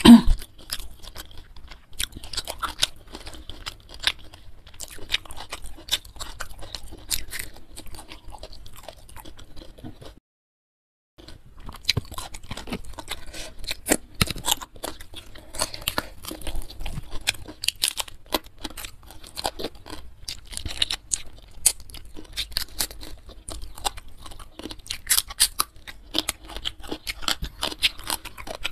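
Close-miked chewing and crunching of a mouthful from a meal of fried carp and vegetables eaten by hand, a steady run of irregular crackles and smacks. A sharp loud click comes right at the start, and the sound drops out completely for about a second some ten seconds in.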